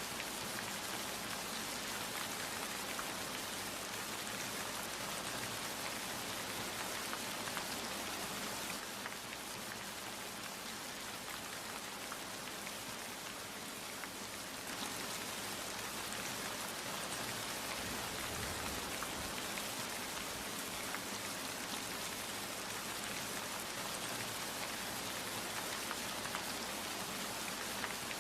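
Steady rain falling, a continuous patter of drops on a surface, easing a little for a few seconds in the middle.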